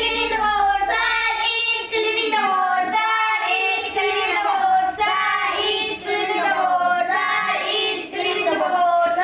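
Duster being rubbed in strokes across a whiteboard, squeaking loudly with a wavering, high-pitched squeal that breaks off briefly between strokes.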